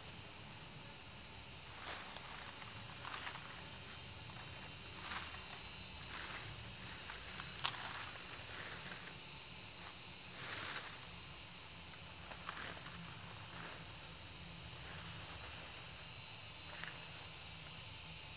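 Dry leaf litter rustling and crackling, with scattered taps and clicks of bamboo sticks being handled and one sharp click about eight seconds in, over a steady high insect drone.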